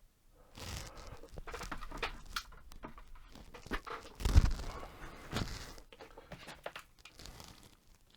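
Handling noise at a workbench: irregular clicks, small knocks and rustling as small parts are handled, with one louder knock a little past the middle.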